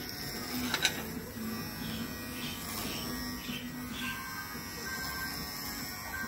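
Electric hair clipper with a comb guard buzzing steadily as it cuts a toddler's short hair, with one sharp click a little under a second in.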